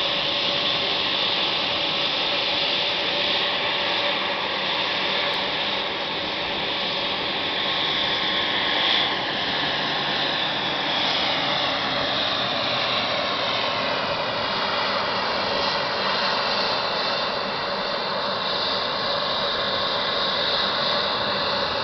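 Aircraft engine noise, a steady roar with a strong hiss: a Dornier 328 turboprop on approach and landing, with the whine of an Embraer 190 jet close by. In the second half a slow falling sweep runs through the hiss as the aircraft move.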